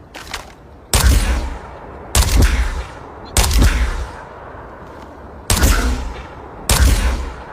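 The 'Resonator' sound effect: a series of heavy, gunshot-like blasts, each with a deep thump and a fading ringing tail. Three come about a second apart, then after a longer gap two more.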